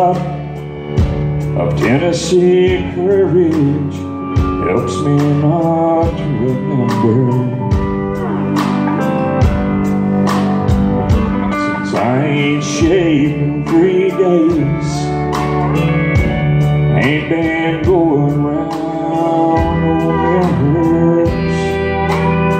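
Live traditional country music: a man singing into a microphone over his acoustic guitar, with other instruments backing him and a steady beat.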